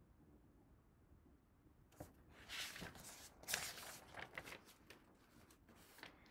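Paper pages of a picture book being turned by hand: a run of crisp rustles and flaps starting about two seconds in and lasting about two and a half seconds, then quiet handling.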